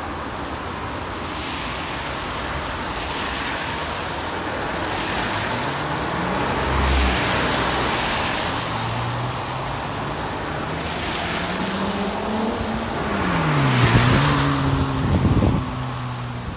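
Road traffic passing: several vehicles go by one after another, tyre noise swelling and fading with each. An engine note climbs through the middle, and the loudest pass, with a swoop in engine pitch, comes about fourteen seconds in.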